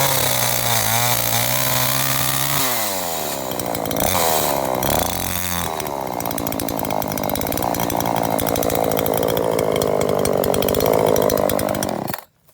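TCS42X-16SN 39.6 cc two-stroke gasoline chainsaw running at high revs, its engine pitch dropping and climbing again several times. It cuts off suddenly near the end.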